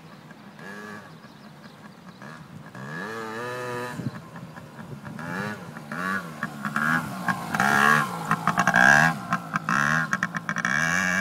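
Yamaha PW80's small two-stroke single-cylinder engine revving up and down over and over as the throttle is opened and closed. It grows louder from about halfway through as the bike comes close.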